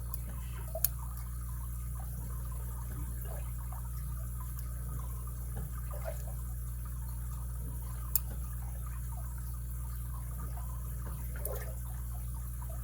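Lock pick and tension wrench working the pin stack of an all-brass padlock: faint scratching and ticking, with two sharp clicks, about a second in and about eight seconds in, over a steady low hum.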